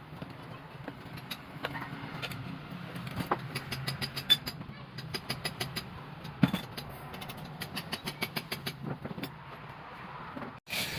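Irregular clicks and light knocks over a low, steady hum, cutting off abruptly near the end.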